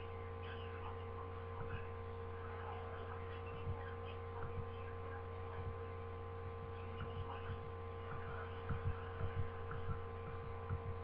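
Steady electrical mains hum with several steady tones, and faint low knocks here and there, more of them in the second half.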